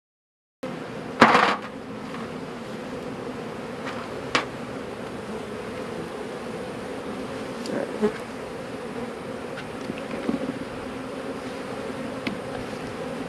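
Honeybees buzzing in a steady, pitched hum around open hives, starting abruptly under a second in. A sharp knock comes about a second in, with a few lighter knocks and clicks later on.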